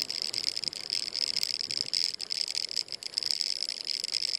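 Steady, high-pitched insect chorus, with a few faint clicks.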